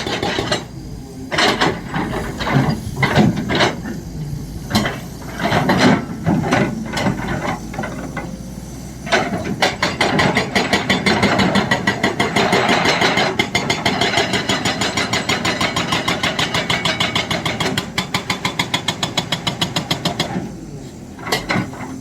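Excavator-mounted hydraulic breaker hammering over the running diesel engine. Irregular knocks over the first several seconds, then a fast, even run of blows from about nine seconds in that stops near the end.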